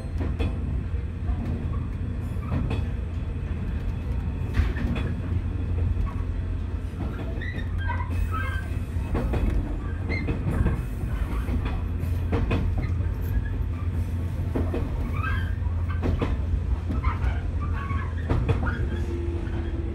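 Shinano Railway 115 series electric train running, heard from the cab: a steady low rumble with clacks from the rail joints, and short wavy squeals from the wheels about a third of the way in and again near the end as the train takes the curving track.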